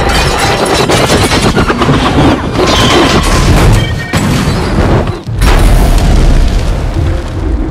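Film sound effects of a helicopter crashing onto a concrete roadway, a dense run of crashing and impacts. After a brief drop about five seconds in comes a deep explosion boom.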